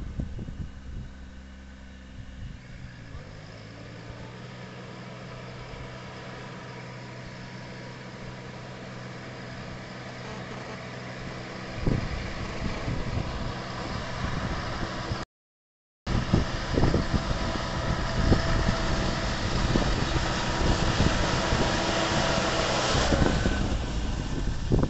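Kubota compact tractor's diesel engine and the air-blast fan of its trailed orchard sprayer running as the rig approaches, growing steadily louder, with a rushing hiss of air and spray on top of the engine hum. The sound drops out for under a second about fifteen seconds in.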